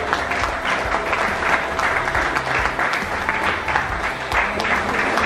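An audience applauding: many people clapping together.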